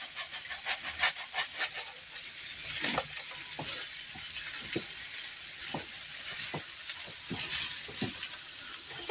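Sliced Polish sausage frying in a wok over a gas flame: a steady sizzle with scattered pops. For the first two seconds or so, dry instant white rice rattles quickly out of a cardboard box into a pot. About three seconds in there is a single knock.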